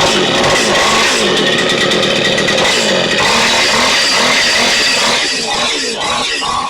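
Stihl FS76 string trimmer's two-stroke engine running loud just after starting, its speed wavering up and down; it eases off a little near the end. The engine now runs after its fuel line, fuel filter and tank grommet were replaced.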